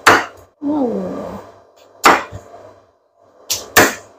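Cleaver chopping down through crispy roast pork belly (siu yuk) onto a wooden chopping board: four sharp chops, one at the start, one about two seconds in and two close together near the end.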